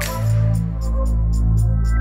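Background music: sustained synth notes over a deep bass, with a steady ticking beat of about four ticks a second.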